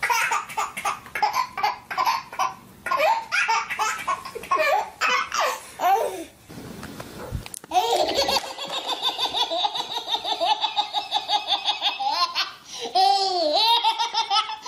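Baby laughing hard, belly laughs in long runs of rapid pulses, with a short break about six seconds in.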